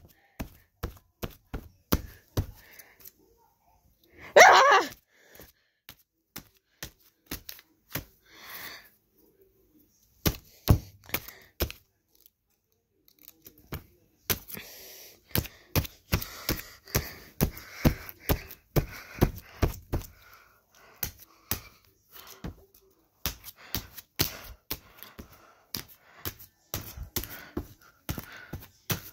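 A long run of irregular sharp knocks and taps, sparse at first and coming thick and fast in the second half, with a short pitched cry about four and a half seconds in.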